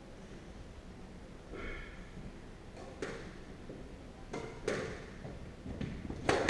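Squash ball being struck: a few sharp knocks of the ball off the racket and the court walls as a rally gets under way, the loudest near the end.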